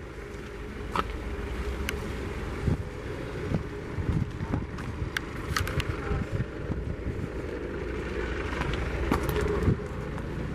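Steady low outdoor rumble, with scattered light clicks and knocks from footsteps and handling as the lot is walked.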